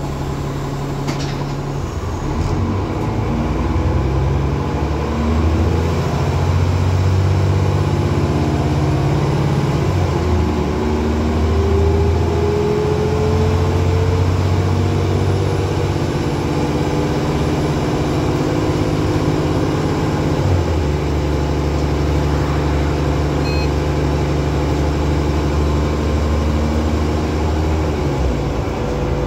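Onboard a Transbus Trident double-decker bus under way, its diesel engine running under load. The engine note steps up and down through the gears, with a whine rising in pitch as the bus gathers speed and a drop in the note about two-thirds of the way through.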